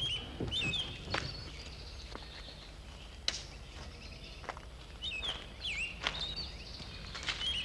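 Birds calling: short swooping whistled calls, a few at the start, more after about five seconds, and again near the end, over a steady low outdoor rumble, with a few faint knocks.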